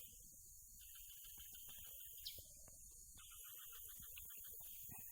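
Near silence: faint, pulsing insect chirring that comes and goes in stretches, with a few soft rustles.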